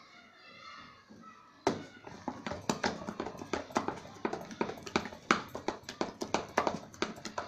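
A spoon beating thick cream in a steel pot, a rapid, irregular clatter of knocks against the pot that starts suddenly a couple of seconds in. The cream is stiffening as it is churned into butter.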